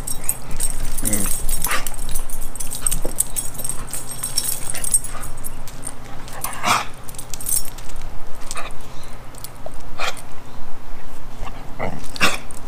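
Squeaky dog toy squeaking a few times, short and sharp, as two dogs tug and chew on it.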